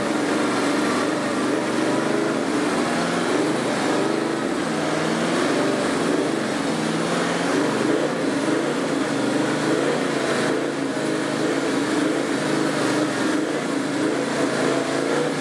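Toyota LandCruiser 79 series' V8 turbo-diesel running at low revs, its pitch wavering slightly as the truck crawls over ruts.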